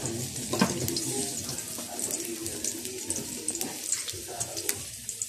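Fat melting and sizzling in a hot steel wok: a steady hiss with small crackles, and one sharp knock about half a second in.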